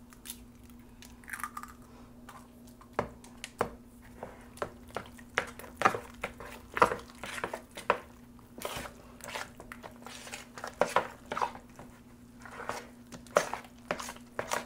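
Thick fritter batter of flour, egg and chopped conch being mixed with a spoon in a plastic bowl: irregular wet squelches and clicks of the spoon against the bowl. A steady low hum runs underneath.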